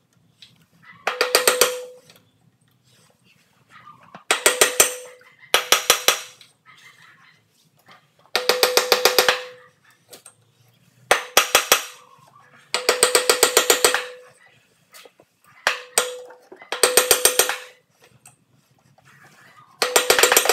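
A hammer repeatedly tapping the flywheel and the nut threaded back onto the crankshaft of a Briggs & Stratton lawn mower engine, to shake the flywheel loose from its taper without a puller. About nine short bursts of rapid metallic strikes, each burst ringing with a clear tone.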